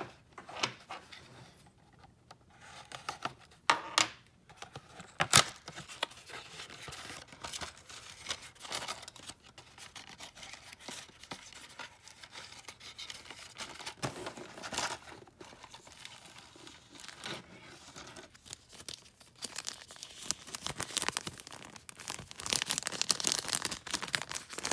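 Cardboard box being opened by hand: flaps torn and pried, with a few sharp clicks and scrapes. Then a clear plastic bag crinkles and rustles, louder over the last few seconds.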